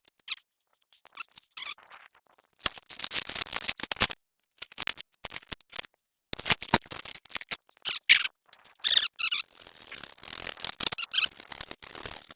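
Intermittent scraping and rattling with a few sharp clicks, in short irregular bursts broken by brief quiet gaps.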